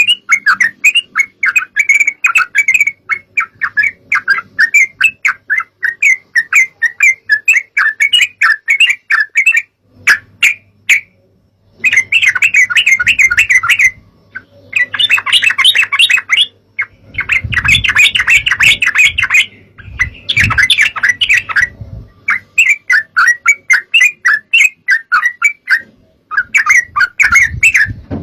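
Yellow-vented bulbuls chattering: loud runs of quick, bubbly notes in repeated bursts with short pauses between them. A low rumble lies under the calls for a few seconds around the middle.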